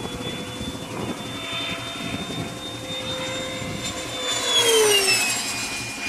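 Soulcry RC jet's 130 mm electric ducted fan whining at speed in a fly-by: a steady high whine that gets loudest and drops in pitch as the jet passes, about four to five seconds in.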